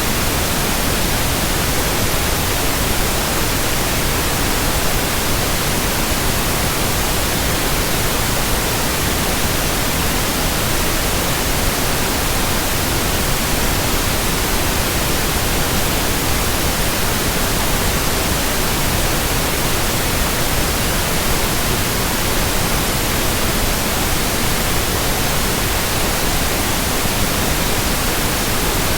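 Steady white noise: an even, unchanging hiss with no rhythm or events.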